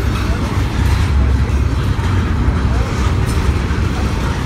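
Norfolk Southern double-stack intermodal freight train rolling past, container-laden well cars going by: a loud, steady low rumble of wheels on the rails.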